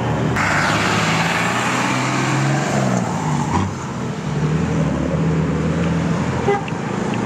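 Small sedans driving slowly past at close range, engines running at low speed, over steady street traffic.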